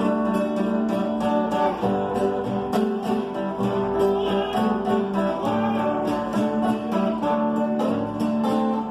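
Instrumental break of sertanejo music on acoustic guitar: a plucked melody over a strummed rhythmic accompaniment, with no singing.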